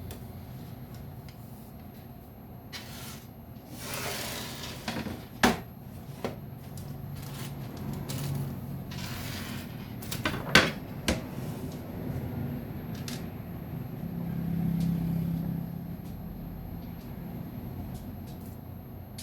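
Parts and tools being handled during a jig assembly: scattered light knocks and clicks, two sharp ones about five and ten and a half seconds in, with brief rustles, over a steady low hum.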